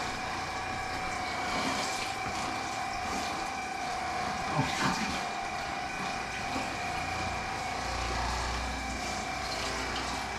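Water running at a bathroom sink over a steady hum, the hum holding one even tone throughout.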